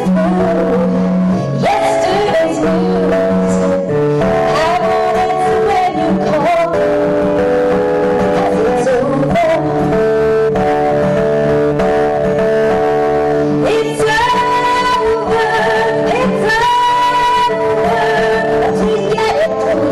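A woman singing with a steady acoustic guitar accompaniment, holding long wavering notes in the second half.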